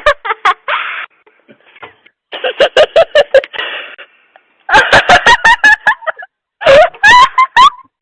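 A young child's high-pitched babbling without clear words, in four bursts of about a second each.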